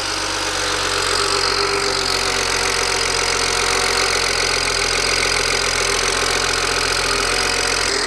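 BMW N54 twin-turbo inline-six idling steadily, its newly installed index 12 piezo fuel injectors super loud with the engine cover off; otherwise the engine runs fine.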